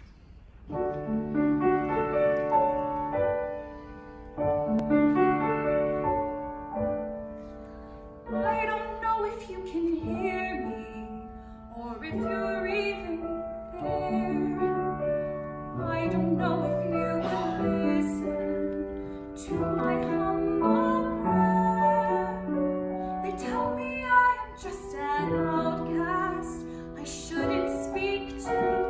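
Grand piano playing a slow ballad accompaniment in sustained chords. About eight seconds in, a woman's solo voice comes in over it, singing in a musical-theatre style with vibrato.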